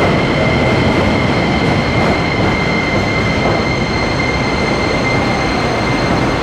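Keikyu electric train running along the station platform: a loud, steady rumble of wheels on rail with a high, steady squealing tone held throughout.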